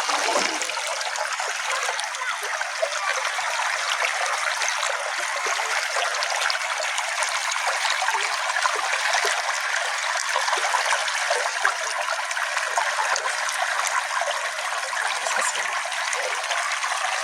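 A small forest stream flowing over stones, a steady trickling and babbling of water.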